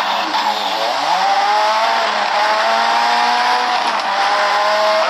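Racing car engine revving: its pitch dips about a second in, then climbs steadily and keeps rising toward the end.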